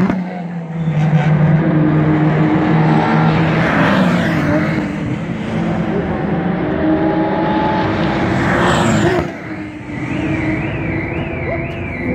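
Several race car engines running, with cars rushing past about four seconds in and again near nine seconds. A high warbling tone starts near the end.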